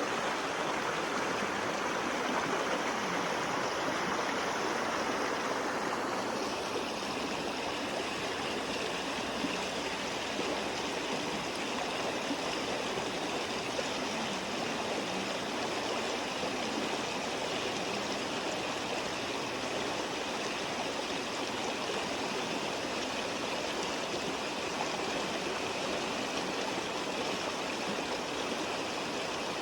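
Creek water rushing steadily over rocks, a constant wash whose tone shifts slightly about six seconds in.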